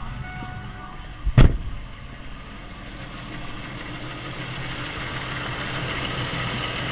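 2005 Pontiac Montana's 3.4-litre V6 idling with a newly fitted harmonic balancer, running smoothly and growing slightly louder over the last few seconds. A single loud thump about one and a half seconds in.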